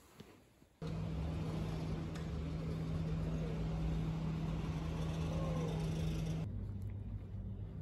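Outdoor street ambience: a steady low hum over road noise, starting suddenly about a second in, then switching abruptly near the end to a quieter, lower hum.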